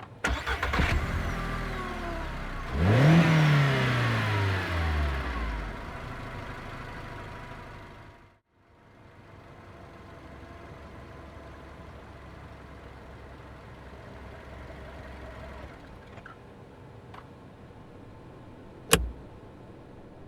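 Car engine starting and revving up, then dropping back and fading away. A steady, quieter rumble of the car driving follows, and there is a single sharp click near the end.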